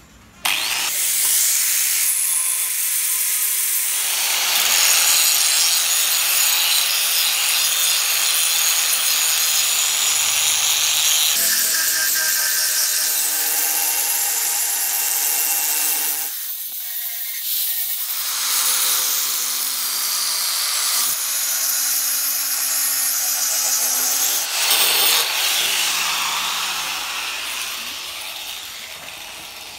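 Angle grinder grinding rust off the steel blade of a meat cleaver, a harsh, continuous grinding whose motor note shifts as the disc is pressed on and eased off. It lets up briefly past the middle and fades away near the end.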